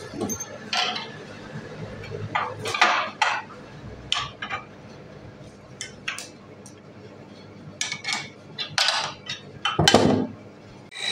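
Irregular metal clinks and knocks of a wood lathe's steel tool rest being shifted and its locking lever worked. The loudest knock comes near the end.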